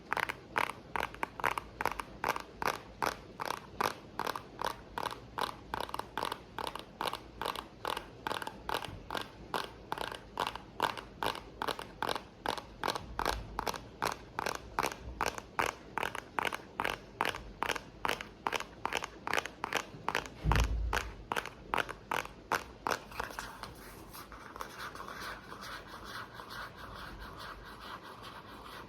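Steady, even tapping, two to three crisp taps a second, over a constant rain-like hiss, with one low thump about twenty seconds in. The tapping stops about three-quarters of the way through, leaving a steady scratchy hiss.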